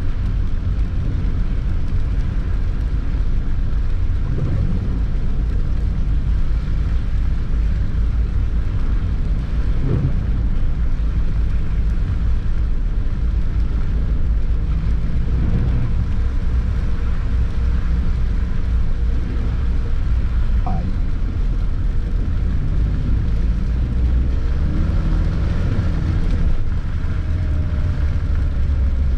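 Suzuki Vitara 4x4 driving slowly on snowy city streets, heard from inside the cabin: a steady low engine and road rumble.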